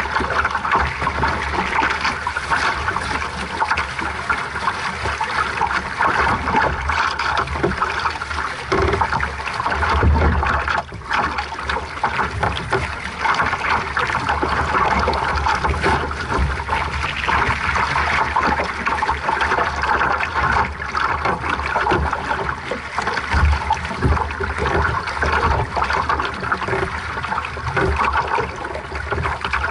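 Water rushing and splashing steadily along the hull of a small sailing dinghy under way, with a low rumble of wind on the microphone that swells briefly twice.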